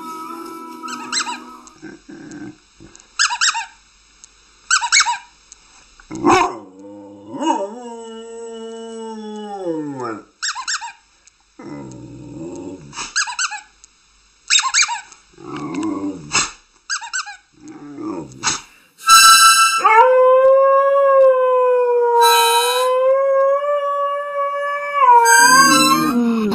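Dogs howling, one clip after another: first a dog howling along with wolves howling on a television, then short high squeaky cries and a long howl that glides downward. A Rottweiler's long, steady howl near the end is the loudest.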